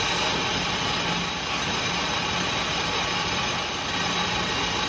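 Metal lathe running steadily as it turns the dish into the crown of an aluminium piston.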